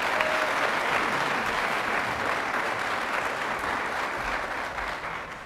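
A large audience applauding: steady clapping of many hands that fades away near the end.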